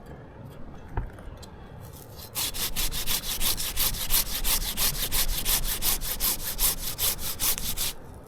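Handsaw cutting through a limb of green basswood about three inches thick, in quick even strokes, about four a second. The sawing starts about two seconds in and stops just before the end.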